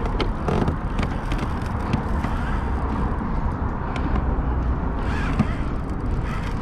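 Steady low rumble of wind on the microphone and water moving around a kayak's hull, with a few scattered light clicks and knocks.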